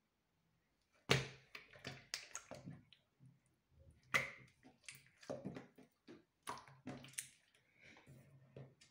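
Slime being stretched, folded and squeezed by hand, giving wet squelches and sharp sticky clicks in bursts of up to a second, with short pauses between them.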